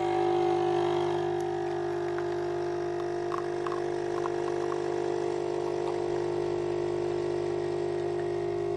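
Capsule coffee machine brewing, its pump buzzing steadily as coffee runs into a cup.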